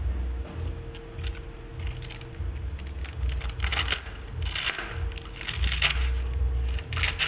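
Kitchen knife cutting through a head of cabbage on a plastic cutting board, with crisp crunches at the cuts, the loudest a little past the middle and near the end, over a low rumble.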